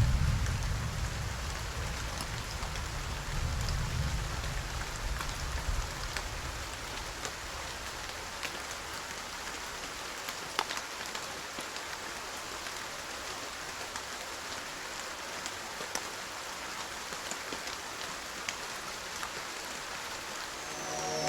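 Steady rain falling, with individual drops ticking sharply on surfaces. A low rumble dies away over the first few seconds.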